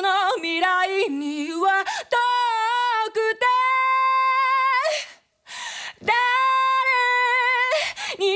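A woman singing unaccompanied in Japanese, belting: a few short phrases, then a long held high note, a quick breath about five and a half seconds in, and a second long held note.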